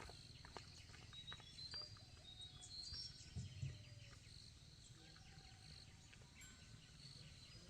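Faint ambience of small birds chirping and twittering, with scattered light clicks and a short low thud about three and a half seconds in.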